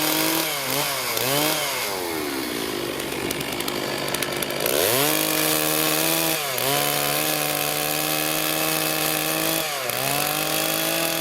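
Two-stroke chainsaw running at full throttle while cutting firewood, revved in short blips at first. The pitch sags for a couple of seconds, climbs back to a steady high note about five seconds in, and dips briefly twice after that.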